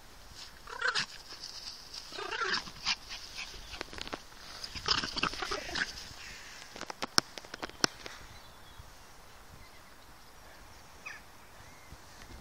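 Two small dogs, a Yorkshire terrier and a black German Spitz Klein, barking in short bursts while they play, three bursts in the first six seconds. A couple of sharp clicks follow about seven seconds in.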